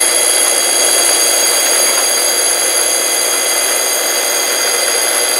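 Hayward 2-horsepower pool pump motor running with a steady high-pitched whine over a rushing hiss. The whine is the sign of worn motor bearings in a motor that is running hot.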